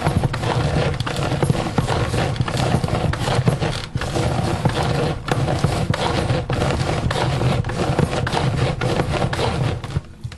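Hand-powered Rocket Chef chopper worked hard and fast on fresh strawberries: continuous rapid knocking and rattling of the blades and plastic bowl. The bowl shifts and knocks on the counter because nothing is under it to hold it steady.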